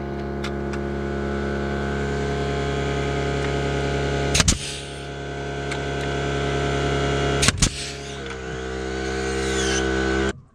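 Pneumatic framing nailer firing into wood framing: two sharp double cracks, about three seconds apart, over a steady machine hum that cuts off suddenly near the end.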